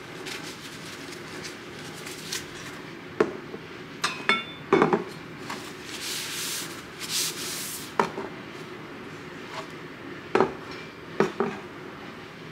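Glass and ceramic ornaments, a glass hourglass, a ceramic pitcher and figurine, being lifted and set back down on a shelf: a series of light knocks and clinks, one with a brief glassy ring, with a cloth wiping the shelf about halfway through.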